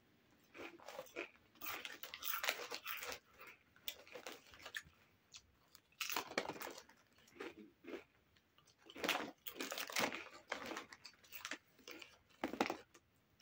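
Doritos Nachos tortilla chips being bitten and chewed close to the microphone: irregular bursts of crisp crunching with short pauses between mouthfuls.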